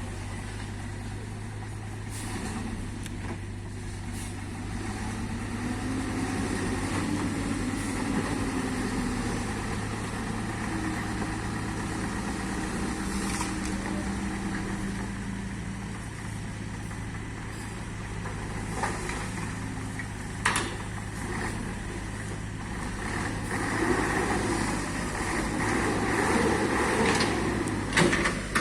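Diesel engines of earthmoving machines, an excavator and dump trucks, running steadily. The engine note rises and falls for several seconds in the first half, and there are two sharp knocks: one past the middle, one near the end.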